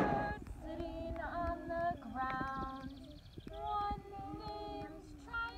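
A woman and a group of young children singing a slow children's song together without instruments, in held notes, the children's voices pitched above hers.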